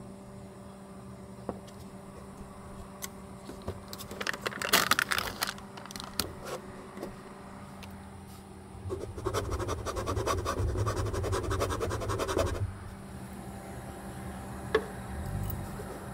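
Foil lid being peeled off a small plastic cup, with sharp crinkling and tearing about four seconds in and a few lighter crinkles after. A longer, dense crackling stretch follows about nine seconds in, over a steady low hum.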